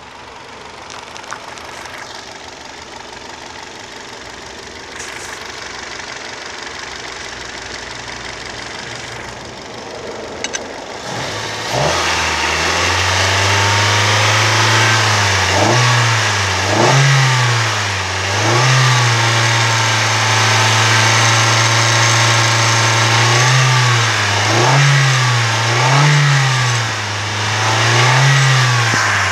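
2015 Hyundai iMax's 2.4-litre four-cylinder petrol engine, faint at first, then loud and steady at idle from about twelve seconds in. It is revved briefly about six times, the throttle cable pulled by hand at the throttle body.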